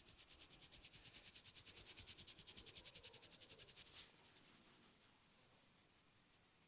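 Fast, rhythmic rubbing strokes on hair and scalp during a head massage, about ten a second, faint and hissy, stopping about four seconds in.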